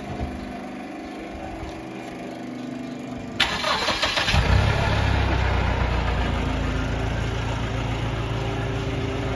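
Mahindra Bolero Pik-Up engine being started: the starter cranks for about a second, starting about three seconds in. The engine then catches and settles into a steady low idle.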